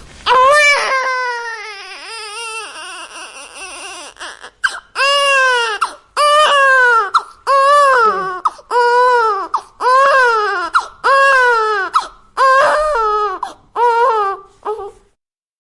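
Newborn baby crying: one long wail that trails off, then a run of short wails, about one a second, each rising and falling in pitch, until it stops near the end.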